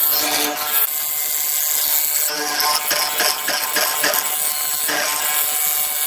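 A small power tool running steadily while working wood, with background music.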